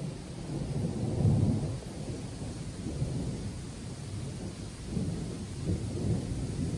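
Rumbling thunder from an approaching thunderstorm, swelling about a second in and again around five to six seconds in.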